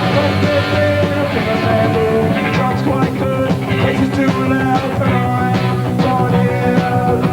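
Punk rock band playing an instrumental passage: electric guitars over bass and steady drum hits, with no singing.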